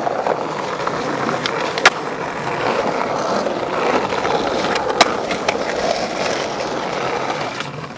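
Skateboard wheels rolling steadily over smooth plaza paving, with two sharp clacks of the board, one about two seconds in and one about five seconds in.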